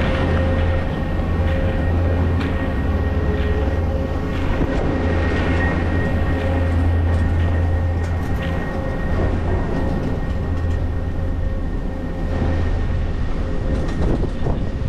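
Steady mechanical hum and rumble of a running chairlift, with a constant low drone and two held tones, over the scrape of skis sliding on groomed snow.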